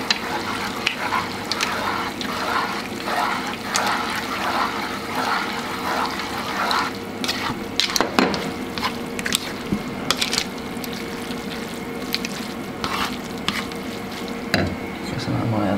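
Linguine and seafood being tossed with metal tongs in a frying pan of bubbling sauce: a continuous sizzle with frequent sharp clicks and scrapes of the tongs against the pan.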